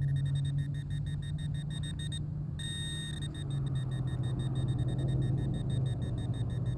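Handheld metal-detecting pinpointer beeping rapidly at one high pitch as it is probed in the hole, signalling a buried metal target. The beeping stops briefly about two seconds in, then holds a steady tone for under a second before pulsing again. A steady low hum runs underneath.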